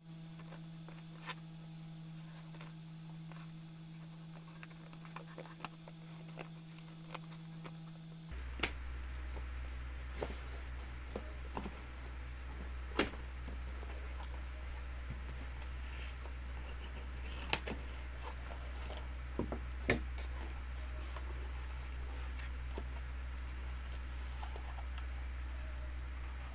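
Scissors snipping through packing tape and cardboard on a shipping box, with scattered sharp clicks and cardboard handling as the flaps are opened. Under it runs a faint steady hum that drops lower about eight seconds in.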